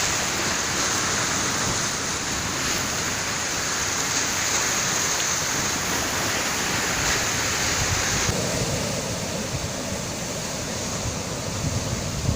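Sea waves washing on a shore, a steady noise of surf that shifts in tone about eight seconds in.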